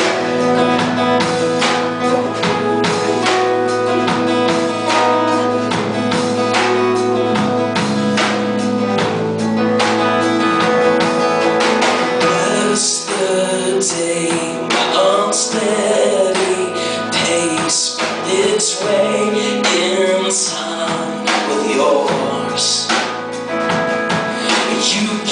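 Live band playing a worship song, with held chords under singing. About halfway through, the sung melody becomes livelier and moves more.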